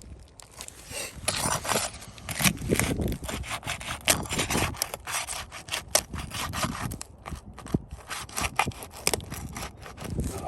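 Scraping, rubbing and sharp clicks of an old asphalt roof shingle being worked loose, its gritty surface dragging and the brittle shingle tearing as it is lifted; the tearing is a sign of a shingle too old to repair.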